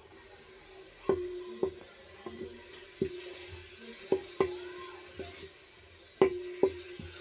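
A spatula stirring sliced onions in oil in a metal pan, clanking against the pan several times at irregular intervals, each knock leaving a short metallic ring, over a soft sizzle of the heating oil.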